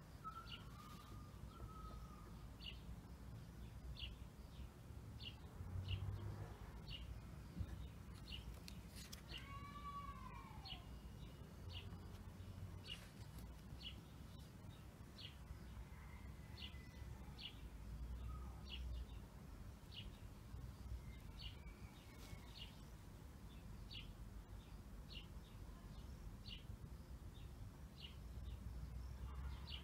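Faint bird chirping: a short, high chirp repeated about once a second, with a couple of longer, arching calls near the middle, over a low steady background rumble.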